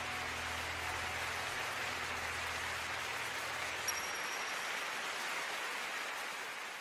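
Steady hiss-like rushing noise once the music has stopped, with a low hum dying away about four seconds in and a faint click just before it; the noise fades out at the end.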